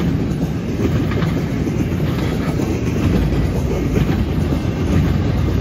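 Empty intermodal well cars of a freight train rolling past: a steady rumble of steel wheels on the rails, with occasional clicks of wheels over the track.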